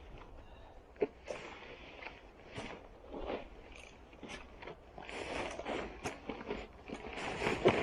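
Irregular rustling and crunching with scattered sharp knocks, as a man clambers out of a kayak and struggles out of a waterproof cagoule and trousers. It grows louder near the end.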